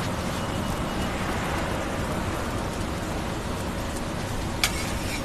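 Steady noisy background of a street food stall, with one sharp click near the end.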